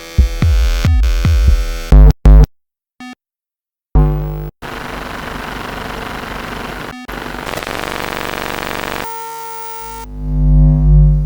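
Electromagnetic interference from electronic devices picked up by an EMF pickup: glitchy buzzing hums and whines that cut in and out abruptly. They drop out to silence twice a few seconds in, give way to a steady noisy buzz, and end on a low swelling hum.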